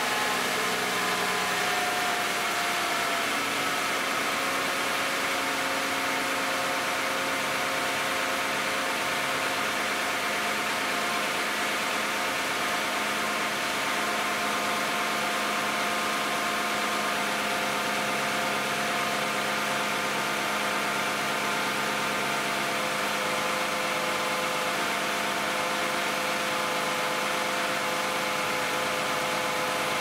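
2010 Toyota Camry's 2GR-FE 3.5-litre V6 idling steadily after a cold start at 161,500 miles. The idle eases down slightly in the first few seconds, then holds even.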